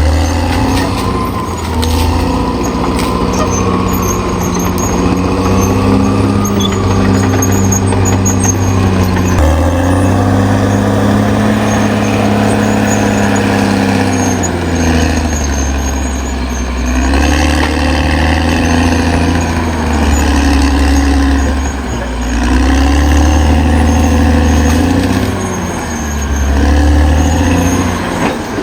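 Caterpillar D6R XL bulldozer's diesel engine working under load, its pitch rising and falling again and again every few seconds as the load and revs change.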